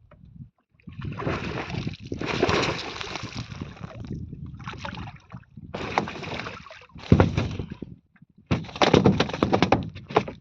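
Water splashing and sloshing in irregular bursts, one long stretch followed by several shorter ones.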